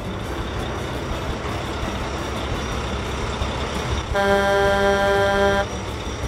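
Sound effect of a truck engine running steadily, with one truck horn honk about four seconds in, held for about a second and a half.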